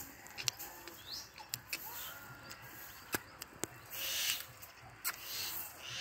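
Green ring-necked parakeet making soft chirps and short breathy, hissy chatter, with a few sharp clicks.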